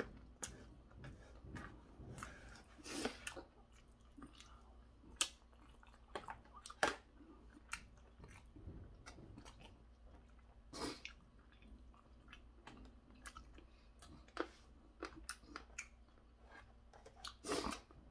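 Close-up chewing of stir-fried pork cartilage, with scattered crunches and clicks as the gristle is bitten, and a spoon scraping the plastic lunchbox at the start.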